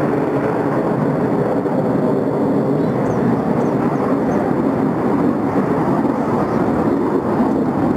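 Jet noise from four F/A-18 Hornets flying in diamond formation: a steady, loud rumble.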